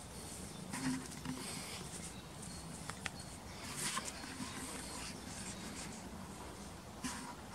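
Faint rustling with a handful of light clicks and scratches as a cat steps and paws along the bark of a fallen log.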